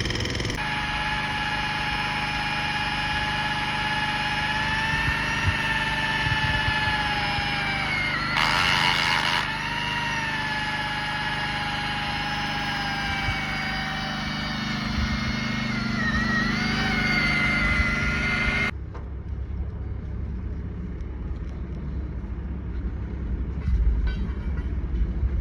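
Excavator machinery running: a steady engine sound with a whine that drifts slowly up and down in pitch and a short burst of noise about eight seconds in. About nineteen seconds in the whine cuts off abruptly, leaving a lower, rougher rumble.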